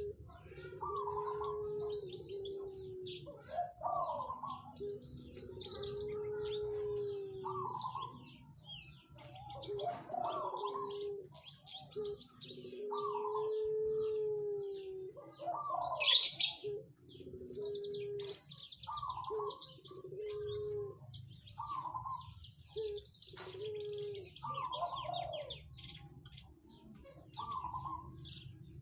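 Javan bush lark (branjangan) singing a dense, varied song of rapid high chirps and trills mixed with mid-pitched whistled notes. Long low drawn-out coo-like notes repeat through it, and one sharp loud burst comes about halfway through.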